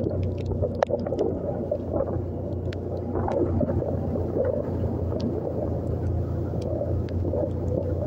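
Small motorcycle engine running steadily under way, a constant low hum, with a few short sharp ticks scattered through.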